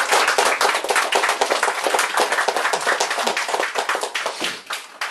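Small audience clapping, the applause thinning out and dying away near the end.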